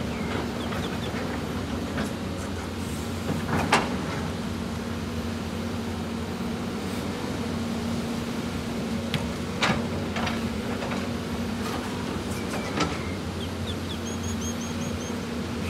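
CAT 320D excavator's diesel engine running steadily under working load as the machine digs and swings, with a few sharp knocks of rock against the bucket, the loudest about four and ten seconds in.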